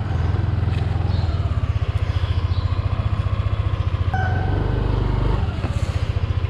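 Yamaha Aerox 155 scooter's single-cylinder engine running with an even low beat as the scooter rides past and pulls up. No brake squeal is heard: the rear drum brake has just been cleaned and is no longer noisy.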